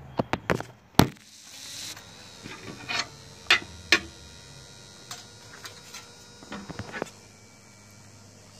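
Handling noise of a phone being moved and set down on a glass-topped table: a run of clicks and knocks, the loudest a sharp knock about a second in, with more scattered taps over the next few seconds.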